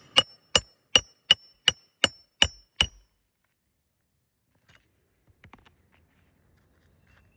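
Hammer driving a roofing nail through an asphalt shingle: eight quick ringing strikes, about two and a half a second, that stop about three seconds in, then a few faint knocks.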